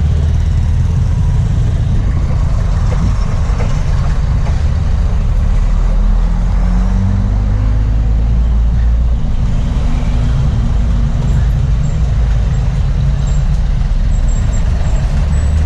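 Steady road traffic: vehicle engines running past, with a strong low rumble.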